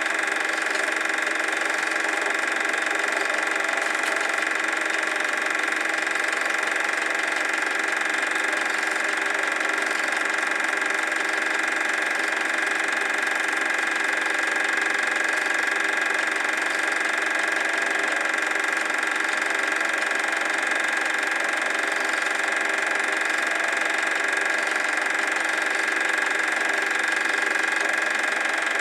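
Super 8 film projector running, a steady mechanical whirr from its motor and film transport that holds an even level throughout.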